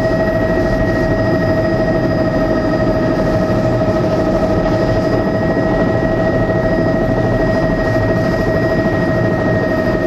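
Helicopter in flight heard from inside the cabin: steady engine and rotor noise with a constant high whine over a low rumble.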